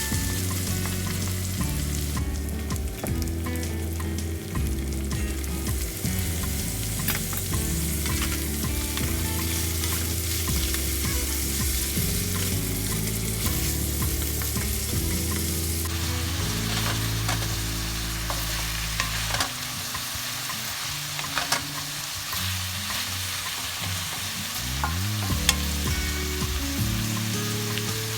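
Food sizzling in a hot frying pan as it is stirred: a steady frying hiss with scattered clicks of the utensil against the pan.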